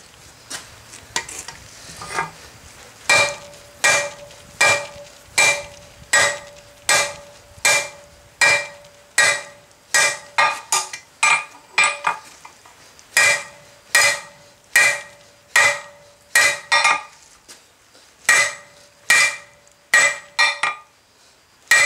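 Hand hammer striking red-hot steel bar on a hornless block anvil, drawing out the rein of a pair of flat-jaw tongs. After a few light clicks, steady blows start about three seconds in at roughly one and a half a second, each with a short ring from the anvil. There is a brief pause about three-quarters of the way through.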